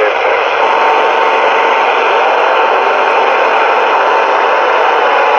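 Radio transceiver's speaker hissing with steady band-limited static between transmissions. A thin steady whistle tone comes in about half a second in.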